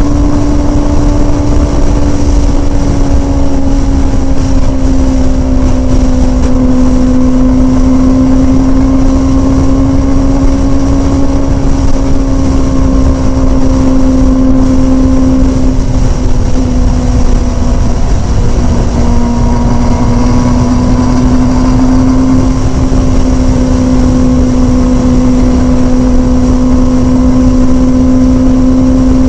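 Kawasaki Ninja sport bike engine holding a steady highway cruise: one even, high drone that sags slightly in pitch a little past halfway and then picks back up, over a low rush of wind.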